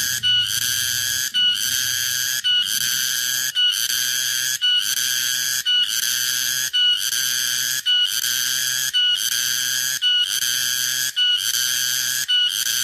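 Garengpung (tonggeret) cicada calling: a loud, steady, whistling buzz that repeats in a regular rhythm about once a second. Each call ends in a short sharper note before a brief break.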